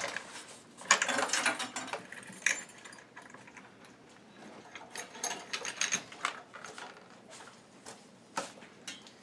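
Metal clicking and clanking in several bursts as a PTO drive shaft's yoke, with its spring-loaded locking collar pulled back, is worked onto a tractor's splined PTO shaft; a chain on the shaft jangles.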